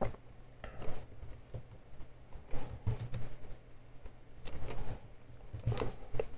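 Computer mouse clicks and a few keyboard key presses, short irregular clicks a second or so apart, over a faint steady low hum.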